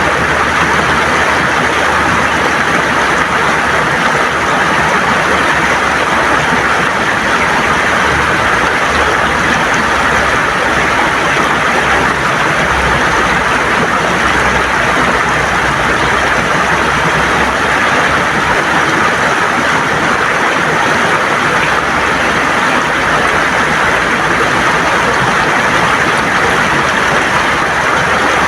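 River water flowing and gurgling over stones in a steady, unbroken rush.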